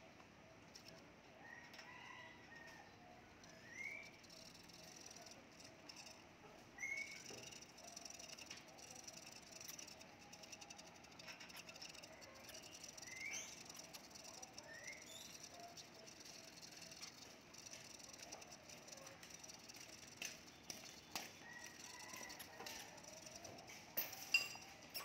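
Faint clicks and rustles from dwarf hamsters moving through wood-shaving bedding and nibbling a seed mix. Several short, faint rising chirps come every few seconds, and a couple of sharper clicks come near the end.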